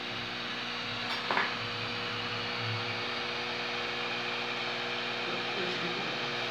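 Hot air rework gun blowing steadily onto a chip on a circuit board: an even hiss of air with a low steady hum beneath it. A brief click sounds about a second in.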